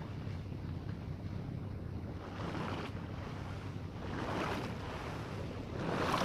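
Small sea waves washing onto the beach, with a steady low rumble of wind on the microphone; three swells of surf come and go, the last one near the end the loudest.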